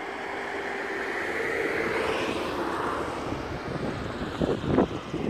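A distant engine drone with a faint steady hum that swells to a peak about two seconds in and then eases off, with a few bumps near the end.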